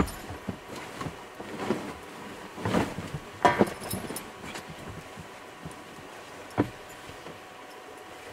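Bumps, knocks and rustling as a dog and its owner climb into a Volkswagen Westfalia camper van and move about on the bed. The louder knocks cluster around three seconds in, with one sharp knock near seven seconds, then it goes quieter.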